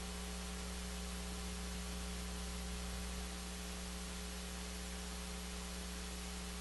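Steady electrical mains hum and hiss from the sound system's feed, with no room sound or voices in it.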